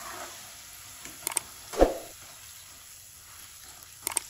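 Wire-mesh skimmer clinking against a frying pan as fried okra is scooped out of hot oil, over the faint hiss of the oil. A pair of clicks comes just over a second in, then one louder knock, and another pair of clicks near the end.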